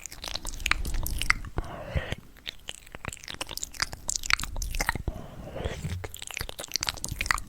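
Close-miked biting and chewing of crisp fruit: a string of crunches and wet chewing clicks.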